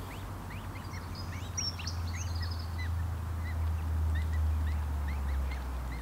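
Birds chirping in many quick, short calls, over a steady low droning rumble that swells around the middle and then eases.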